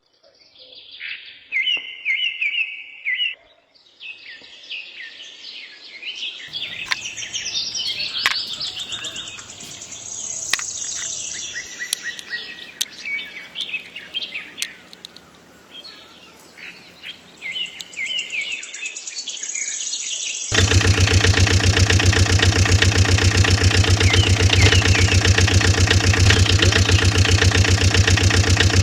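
Birds chirping and calling, with a few sharp clicks. About twenty seconds in, a small motor starts suddenly and runs with a loud, steady hum.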